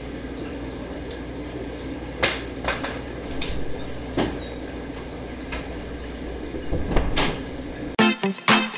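A handful of sharp clicks and knocks at uneven intervals from a person moving about and leaving, over a steady low room hum. Guitar music starts near the end.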